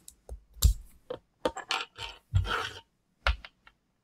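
A disposable vape pen being handled and worked open by hand: a series of short clicks and knocks with a couple of longer scrapes of its casing.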